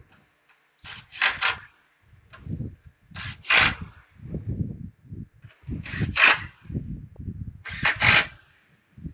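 Hand ratchet wrench being worked in short strokes to drive in the 10 mm wiper-motor mounting bolts: four pairs of quick rasping ratchet bursts about every two seconds, with tool and parts handling noise between them.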